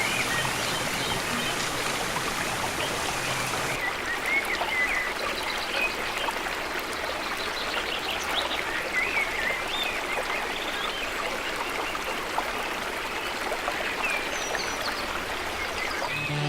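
Hot oil sizzling steadily in a frying pan, a continuous hiss with small crackles, as sambal or fish fries.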